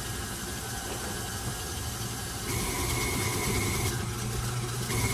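KitchenAid stand mixer running with its whisk attachment, beating thick peanut butter frosting. About two and a half seconds in, the motor gets louder and a steady high whine joins the hum.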